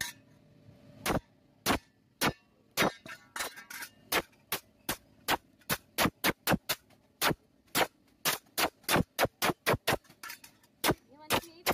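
Hand hammer striking a steel shovel blade on an anvil: a run of sharp, ringing metal blows that starts about a second in and speeds up from about two to about three a second, with a short pause near the end.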